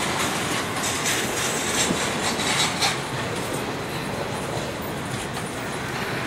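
Double-stack intermodal container train rolling past on steel wheels and rail: a steady noise of wheels and cars, with a run of clicks as wheel sets pass over the rail through the first three seconds, then a little quieter.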